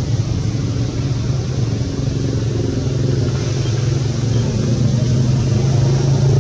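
A steady low engine hum, like a motor vehicle idling, running without a change in pitch and growing slightly louder near the end.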